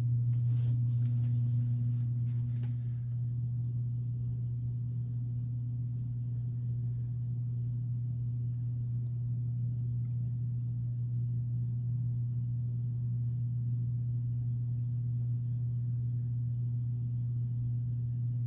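Steady low hum with no change in pitch or level, with a few faint brief clicks in the first three seconds.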